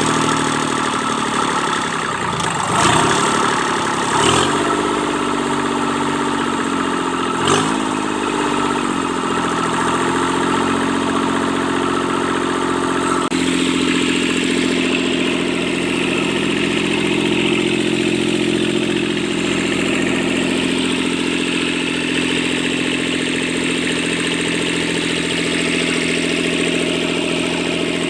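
Kubota D650 three-cylinder diesel engine running after its injection pump repair. Its speed rises and falls briefly a few times in the first eight seconds, then it runs steadily.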